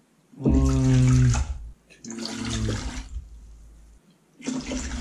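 White vinegar pouring from a plastic gallon jug into a glass measuring cup, in three short pours with a pitched, glugging splash.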